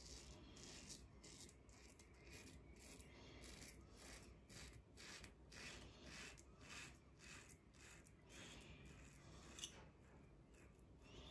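Edwin Jagger 3one6 safety razor with a Tatara blade cutting lathered stubble on an against-the-grain pass: a faint series of short strokes, about two a second.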